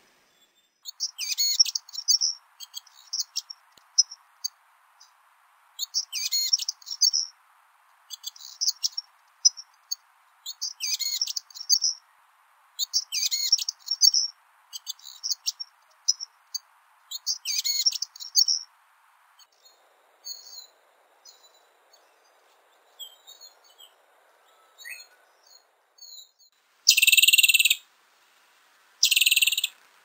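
Mountain wren (Troglodytes solstitialis) singing: short, high, trilled phrases repeated about every two seconds. Later come a few faint thin notes, then two loud harsh buzzy bursts near the end.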